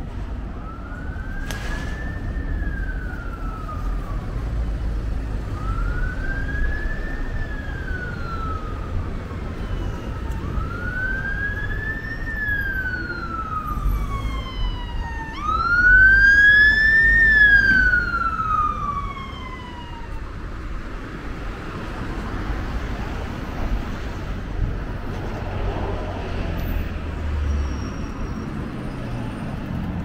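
Emergency vehicle siren wailing in slow rise-and-fall sweeps, each about five seconds long. It is loudest just past the middle, then fades out about two-thirds of the way through. A steady low rumble from the train runs underneath.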